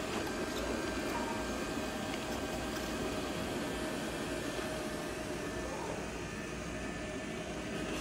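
XWOW R2 robot vacuum and mop running in sweeping and mopping mode on tile, a steady motor-and-fan hum with a faint steady whine.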